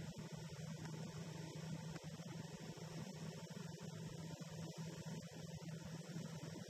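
Motorcycle engine running at a steady cruise, heard as a faint, steady low hum with some wind noise.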